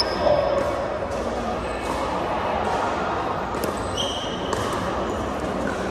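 Pickleball paddles striking a plastic ball, several sharp pops roughly a second apart, with a few short sneaker squeaks on the hardwood floor in a large echoing gym.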